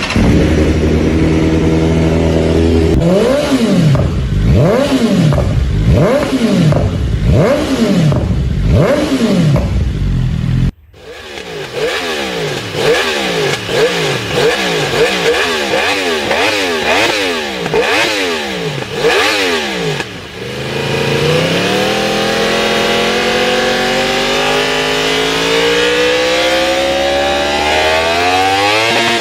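Inline-four superbike engine idling, then blipped in quick revs about once a second. After a sudden cut, a second run of faster blips, then one long, steady climb in revs.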